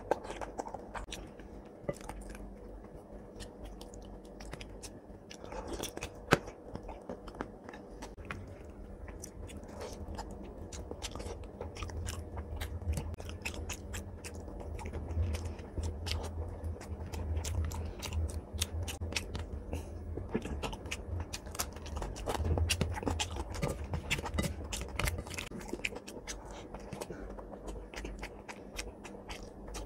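Close-up sounds of a man eating rice and curry with his hand: chewing, wet lip-smacking and mouth clicks, with fingers working the food on the plate. One sharp click about six seconds in is the loudest moment.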